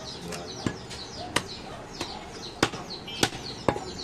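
Heavy butcher's knife chopping through goat meat and ribs onto a wooden log block: about seven sharp, irregularly spaced knocks.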